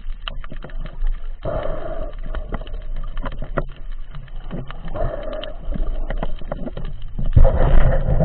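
Underwater sound of a freediver moving along the seabed: a rush of water that swells and fades about every three seconds over scattered sharp clicks, and a heavier thump and rush near the end.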